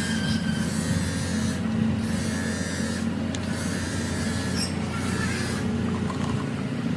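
A machine running steadily with a low hum, with a thin high squeal that fades out in the first second.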